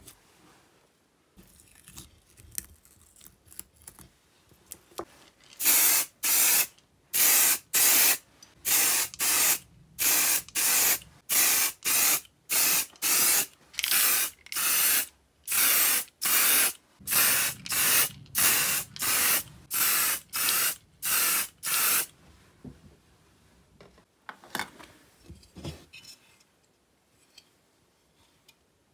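Aerosol spray paint can sprayed in short hissing bursts, about two a second for some sixteen seconds, coating a metal chainsaw housing. Faint handling clicks come before and after.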